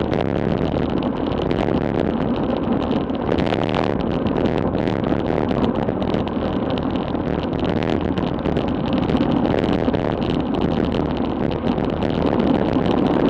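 Wind rushing over a Garmin VIRB action camera's microphone on a bicycle descending at 35 to 50 mph: a loud, steady rush with no breaks.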